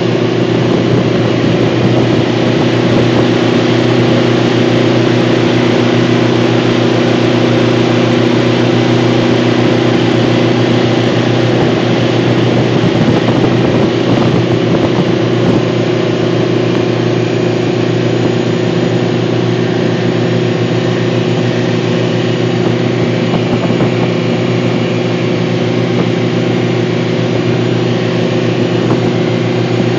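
Alusafe 580 rescue boat's engine running at a steady speed under way, its even drone over a constant rush of water and wind.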